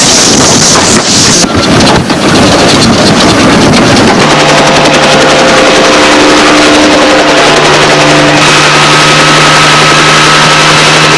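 A loud rushing noise, then from about four seconds in a light bubble-canopy helicopter's engine running with a steady drone and hum.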